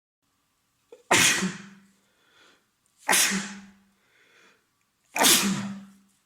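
A man sneezing three times in a row, about two seconds apart, with faint short breaths between the sneezes; he is sneezy and congested with a head cold.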